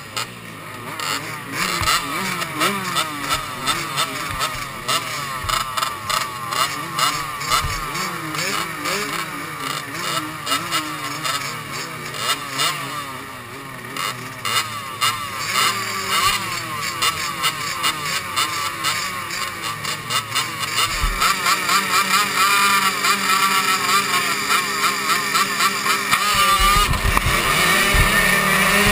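A line of 65cc two-stroke youth motocross bikes, the rider's KTM 65 among them, idling and blipping their throttles at the starting gate in a constant wavering rev. Past the middle the revs climb and hold, and near the end the bikes launch off the line together at full throttle.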